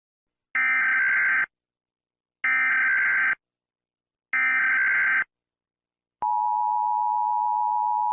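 Emergency Alert System warning: three bursts of SAME digital header data, each about a second long with a second's gap between them. About six seconds in, the steady two-tone attention signal begins.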